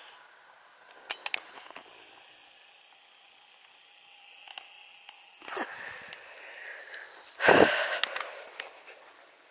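Camcorder handling: a few clicks, then the zoom motor whirring faintly and steadily for about four seconds as the lens zooms out, stopping abruptly. Near the end comes a short, loud puff of air across the microphone.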